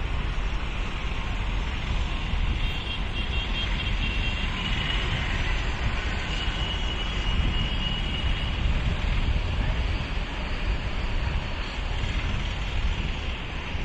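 Wind buffeting the microphone outdoors: a steady rushing noise with an uneven low rumble, and a faint high whistling tone in the middle few seconds.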